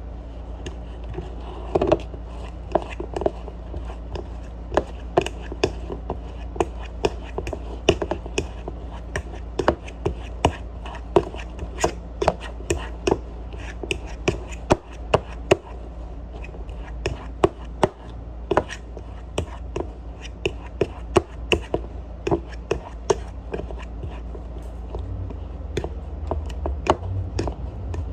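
Fork mashing raspberries in a bowl, the tines striking the bowl in repeated sharp taps, a couple a second.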